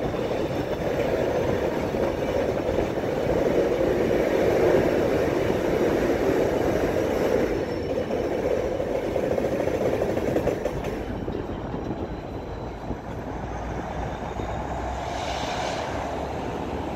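Canadian Pacific freight train's railcars rolling past on the tracks, a steady rumble of wheels on rail that eases off in the second half.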